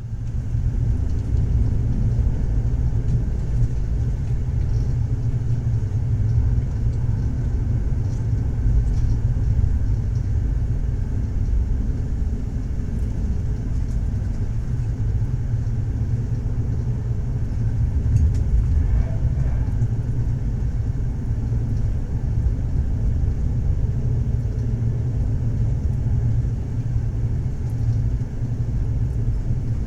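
Passenger train running on rails: a steady low rumble with no distinct wheel clicks standing out.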